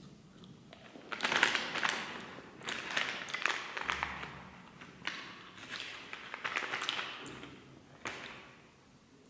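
Foil-lined deli wrapping paper crinkling and crackling in several bursts as it is handled and slices of cold cuts are peeled off it, stopping near the end.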